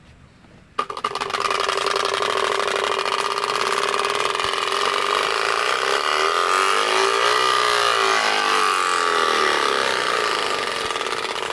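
Plug-in motorcycle exhaust sound simulator on a bicycle, its small speaker playing a recorded motorcycle engine note from a sound card while the rear wheel spins. It switches on about a second in and runs loud and thin, with little bass, its pitch wavering briefly about two-thirds of the way through.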